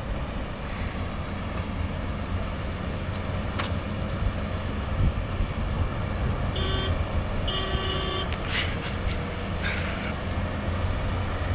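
Iveco Trakker 450's diesel engine droning as the truck approaches, slowly growing louder. Two horn blasts sound a little past the middle, a short one and then a longer one.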